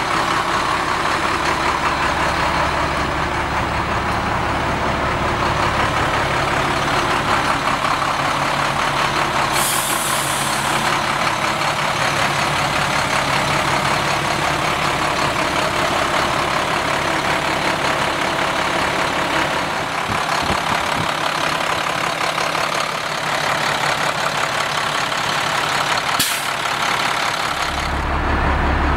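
Diesel engine of a 2006 International hauler truck running steadily, with a short hiss of air about ten seconds in and a click near the end. The low rumble grows heavier just before the end.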